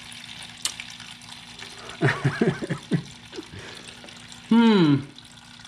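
Water pouring steadily out of the underside of a 1978 Honda CB550 engine and splashing into a plastic drain pan: clean water where the oil should be, the sign of water inside the seized engine. A man's voice makes short sounds about two seconds in, and a louder exclamation falling in pitch near the end.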